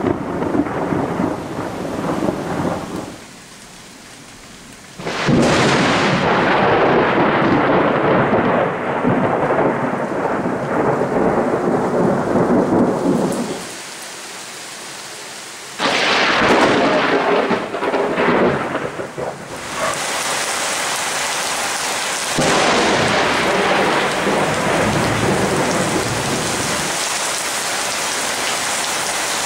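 Thunder from close lightning strikes during a heavy thunderstorm. Two claps start suddenly, about five seconds in and again about sixteen seconds in, each followed by several seconds of loud rumbling. Heavy rain hisses steadily through the last third.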